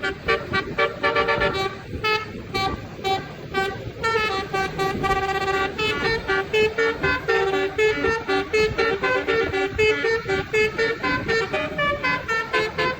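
Bus telolet horn, a multi-trumpet musical air horn, playing a quick tune of short notes that step between pitches, sounding again and again.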